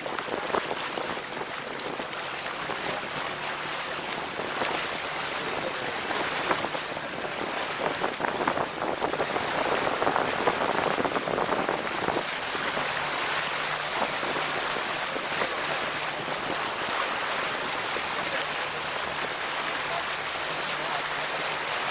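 Water rushing and splashing along the hull of a motorboat under way, with a faint steady engine hum underneath.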